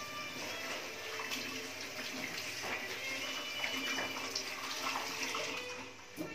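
Tap water running into a washbasin while a child washes his hands under the stream.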